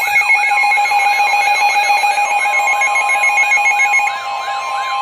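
Layered electronic alert tones: steady tones, a fast warbling tone, and a tone that swoops up and down about three times a second. The swooping tone fades about four seconds in while a steady tone carries on. They signal an incoming weather radio warning.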